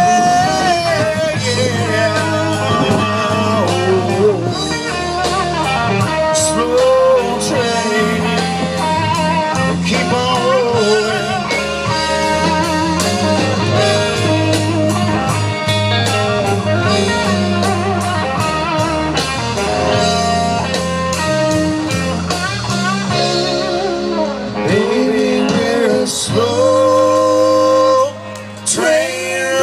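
Blues-rock band playing an instrumental break: a lead guitar solos with bending notes over bass and steady drums.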